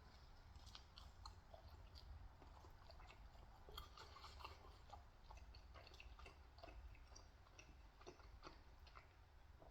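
Faint, close chewing of pizza, with scattered small wet mouth clicks.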